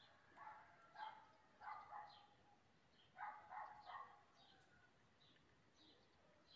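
A dog barking faintly: a few single barks about a second apart, then a quick run of three about three seconds in, with small birds chirping.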